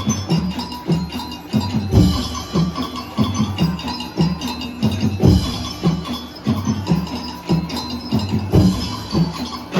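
Street-dance music made of repeated drum hits under a ringing, bell-like melody.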